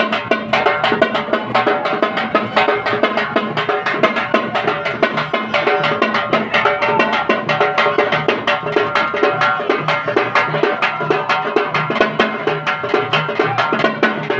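Folk music with a double-headed barrel drum beaten in fast, steady strokes and a melody line over it.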